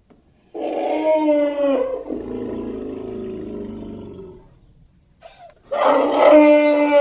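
Created creature sound effect of a Deinotherium, a prehistoric elephant relative: two loud elephant-like roaring calls. The first call starts about half a second in, dips in pitch at its end and trails off into a lower rumble. The second starts near the end.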